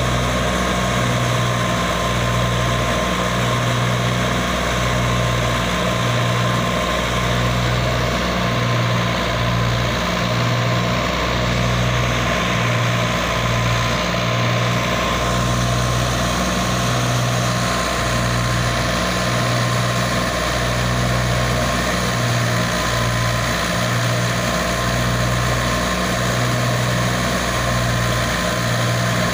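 Fiat 480 tractor's diesel engine running steadily under load, driving a thresher, with a low, evenly pulsing hum and a steady high whine running through it.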